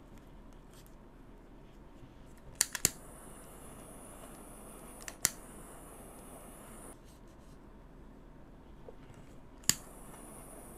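A few short, sharp clicks of small hand tools being handled: three close together about two and a half seconds in, one about halfway, and one near the end, over a faint steady hiss.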